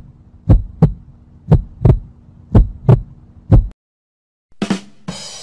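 Heartbeat sound effect: doubled lub-dub thumps about once a second over a faint steady hum, stopping about three and a half seconds in. After a short gap come two quick hits and a noisy crash near the end.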